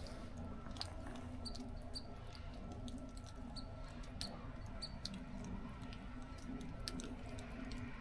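Small forest birds giving short, high chip notes, scattered irregularly, over a steady low hum.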